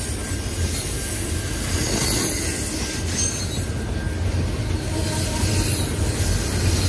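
Double-stack intermodal container cars of a CN freight train rolling past: a steady low rumble of steel wheels on rail, with thin high-pitched wheel squeals coming and going over it.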